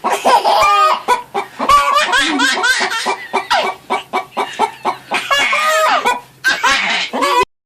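Chickens clucking in many short, overlapping calls that cut off suddenly near the end.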